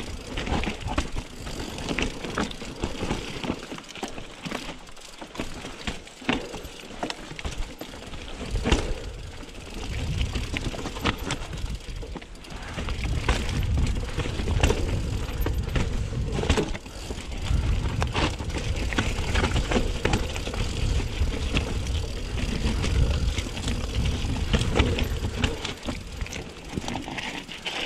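Mountain bike riding over a rough trail: tyres running over stones and gravel, with frequent sharp clicks and rattles from the bike. A deep rumble on the chest-mounted microphone grows stronger from about ten seconds in.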